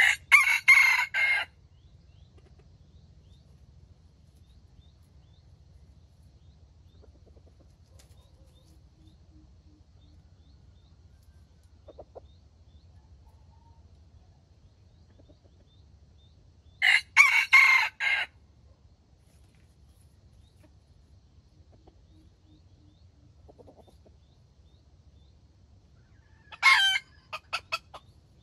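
Red junglefowl rooster crowing twice, each crow a little over a second long and about sixteen seconds apart. Near the end comes a short call followed by a quick run of clucks.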